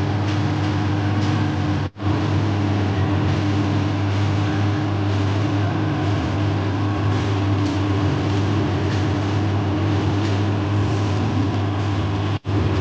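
A steady, even hum with a hiss over it, like a running fan or motor, that cuts out briefly twice.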